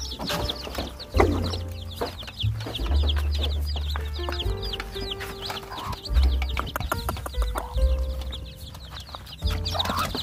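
Chicks peeping: a quick, continuous run of short, high, falling chirps, over background music with a held bass line.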